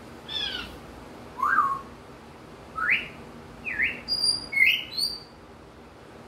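African grey parrot whistling and chirping, mimicking wild-bird calls: about seven short, loud whistled notes, some rising and some falling, the last few coming quickly together.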